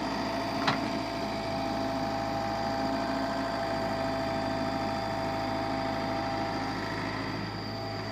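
A motor running steadily at an even hum, with one sharp click a little under a second in.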